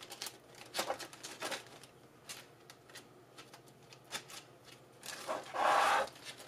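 Thin plastic bag crinkling and rustling as it is handled and fitted over a potted herb cutting, in a run of short rustles with a longer, louder one near the end.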